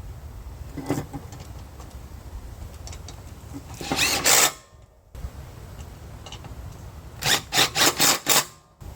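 Metal parts of a mower deck spindle assembly being handled and fitted. There is a single knock about a second in, a half-second rattle around four seconds, and a quick run of about six sharp rattling bursts near the end.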